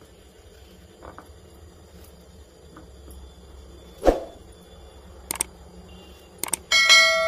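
Faint knife-on-potato cutting with a few soft clicks, and one sharp knock about four seconds in as a potato piece drops into the glass bowl. Near the end come a couple of quick clicks and then a loud ringing bell chime, a subscribe-button notification sound effect that rings on and fades.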